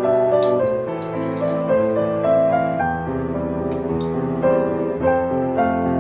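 Background piano music playing steady, changing chords, with a few short clicks over it.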